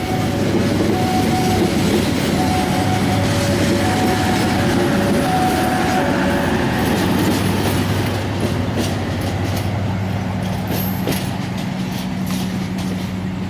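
A train passes at a level crossing, running steadily with a low hum. For the first six seconds a crossing warning signal sounds, two tones alternating. From about eight seconds in, the wheels clack over the rail joints in quick knocks.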